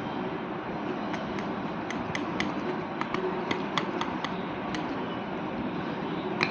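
Glue and borax activator being stirred in a bowl to make slime, with irregular light clicks and taps of the stirrer against the bowl, two or three a second, starting about a second in, over a steady background hiss.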